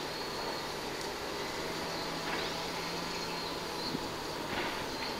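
Outdoor ambience: a steady high-pitched insect drone over a low, constant hum like distant traffic, with a couple of faint short chirps.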